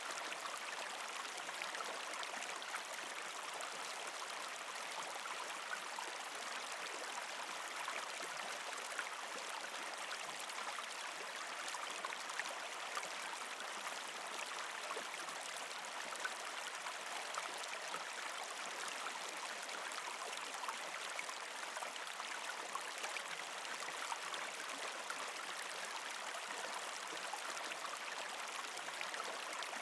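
Steady flowing-water ambience like a running stream, an even rushing sound with fine crackles and no breaks.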